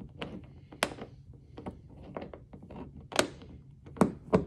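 Steel Allen wrench clicking and knocking in the head of a bow-light mounting bolt set in a kayak hull as it is seated and worked: a string of irregular sharp clicks, loudest about a second in, about three seconds in and near the end.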